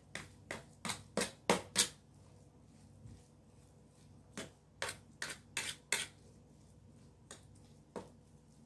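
A utensil knocking against a dish as mashed potatoes are mixed, about three sharp knocks a second. A run of them, a pause of about two seconds, a second run, then two single knocks near the end.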